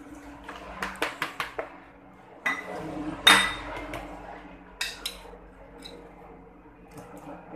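Metal spoon knocking and clinking against a plastic mixing bowl and a plate while stirring batter and handling raw chicken pieces. A quick run of knocks comes about a second in, then one loud ringing clink about three seconds in, then a few lighter knocks.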